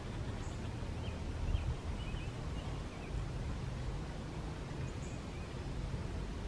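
Faint bird chirps, a few short calls, over a low steady outdoor rumble.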